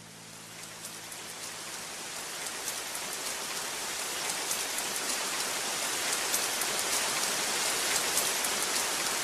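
Steady rain with individual drops ticking on a surface, fading in and growing gradually louder.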